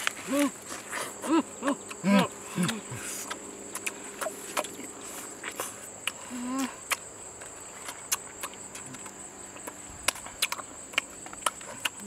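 Insects chirring steadily at a high pitch behind people eating honeycomb: short hummed 'mm' murmurs of enjoyment in the first few seconds and once more near the middle, and sharp clicks of chewing and lip-smacking throughout.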